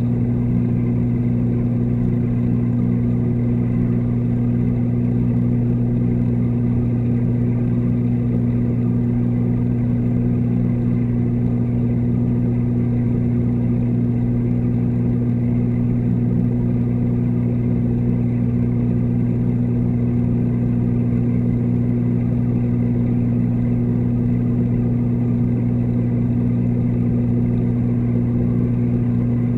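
Steady low electrical hum of reef-aquarium pumps, carried through the water to the submerged camera. It holds unchanged, with no other sounds rising above it.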